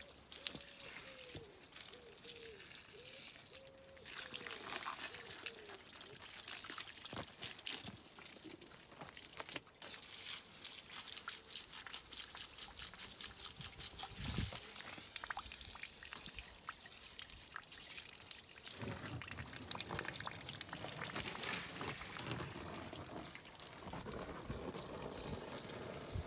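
Water from a garden hose pouring and trickling onto stone paving and plants, a steady splashing hiss.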